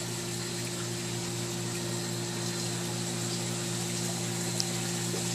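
Pan World 250PX pressure pump running with a steady electric hum, and water pouring and splashing into the aquarium sump with an even hiss.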